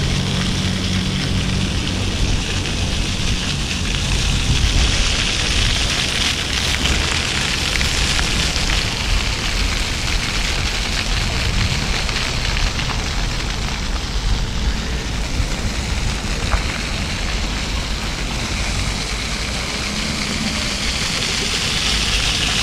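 Steady rushing noise of riding a bicycle: wind on the action-camera microphone and tyres rolling over paving slabs.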